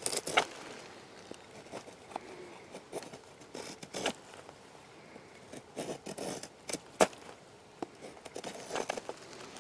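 Knife blade shaving curls off a stick of wood to make a feather stick: a series of short scraping strokes at an uneven pace, with one sharp click about seven seconds in.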